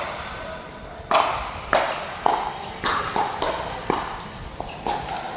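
Pickleball singles rally: solid paddles striking a hard plastic ball, with the ball bouncing on the court, about eight sharp pops spaced roughly half a second apart starting about a second in.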